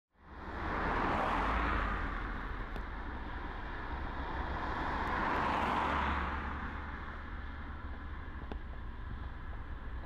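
Road traffic: two vehicles pass one after the other, their tyre noise swelling and fading, loudest about a second and a half and five and a half seconds in, over a steady low rumble.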